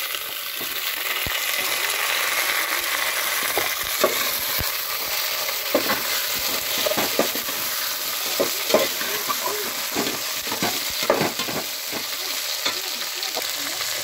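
Chicken pieces frying in hot oil with browned onions in an aluminium pot, a steady sizzle, while a ladle stirs them, scraping and knocking against the pot now and then.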